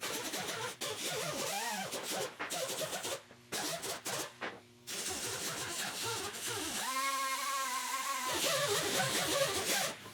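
Brass wire wheel scrubbing an aluminium intake manifold, with the harsh scrubbing breaking off twice briefly and a steady whine for about a second and a half past the middle.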